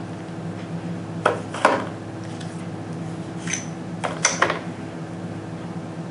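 Plastic cartridge tray and brass .308 Winchester rounds being handled: a few sharp clicks and clinks, in two close pairs about a second and a half in and about four seconds in, over a steady low hum.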